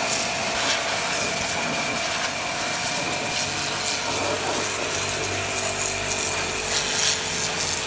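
High-pressure washer running with a steady motor-and-pump whine, its water jet hissing as it blasts the steel frame rails of a truck chassis.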